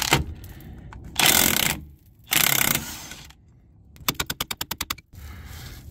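Cordless DeWalt 20V 1/2-inch impact wrench hammering in short bursts on a 24 mm lower clevis fork bolt. The last burst is a quicker, rattling run of separate strikes. The bolt is seized and does not want to come out.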